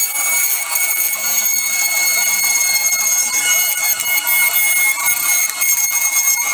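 Handheld rotary tool running at full speed with a steady high-pitched whine, its small bit held against a piece of white PVC and grinding into it.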